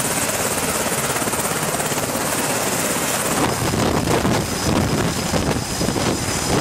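Navy MH-60 Seahawk helicopter running, a steady rotor and turbine noise with a rhythmic blade beat that becomes stronger about halfway through as the helicopter flies low past.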